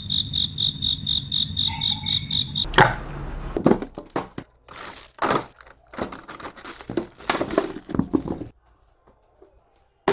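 Rapid electronic beeping, about four high beeps a second, from the malfunctioning radio watch; it stops with a sharp click about three seconds in. Then come scattered small clicks and knocks of the watch being handled as its case is opened.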